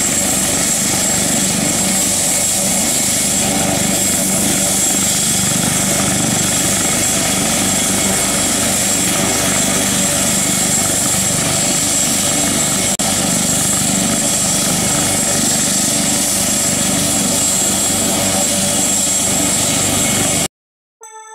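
AgustaWestland AW139 helicopter's twin turboshaft engines and rotors running steadily, a constant high whine over the rotor noise. The sound cuts off abruptly near the end.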